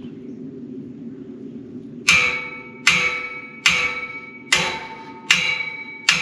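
A hammer striking the steel of a deer stand six times at a steady pace, about one blow a second, starting about two seconds in. Each blow rings with the same clear metallic tones, which fade before the next.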